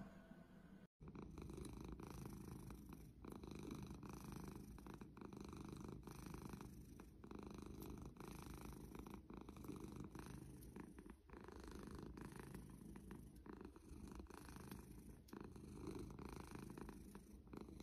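A cat purring steadily close to the microphone, the purr swelling and easing in even waves about a second apart.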